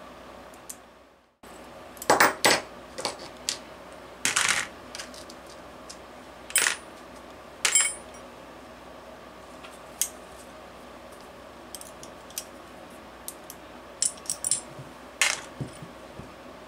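Scattered metallic clinks and taps of small metal engine parts being handled and set down while a Saito FA-130T twin-cylinder model engine is taken apart and its engine mount removed. The sound cuts out briefly about a second in.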